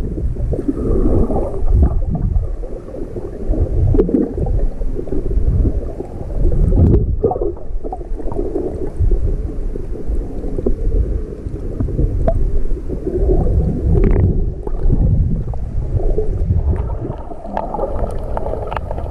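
Underwater sound of shallow seawater picked up by a submerged camera: a low, muffled, surging rumble and gurgling of moving water, with a few sharp clicks, most of them near the end.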